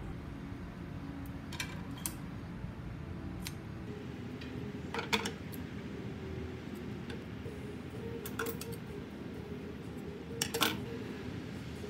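Scissors snipping thread or fabric in a few short sharp clicks, loudest as quick double snips about five seconds in and again near the end, over a steady low hum.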